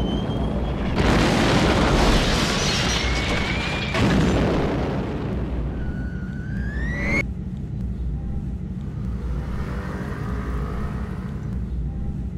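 Wartime bombardment sound effects: heavy booms and blasts with whistling tones rising in pitch over a low rumble. The blasts and whistles cut off suddenly about seven seconds in, leaving the low rumble and faint musical tones.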